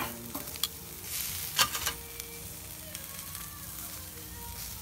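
Sausages and shrimp skewers sizzling on the grate of a charcoal kettle grill: a steady hiss with a few sharp pops and crackles, the loudest about a second and a half in.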